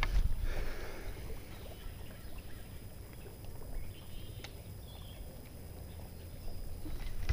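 Open-air ambience on a fishing boat: a steady low rumble, with a few faint light clicks and faint bird chirps.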